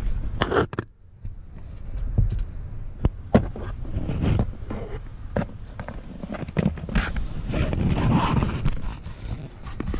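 Irregular clicks, knocks and scraping of a plastic under-dash trim panel being handled and pushed back into place, with sharp snaps from its clips or retainers.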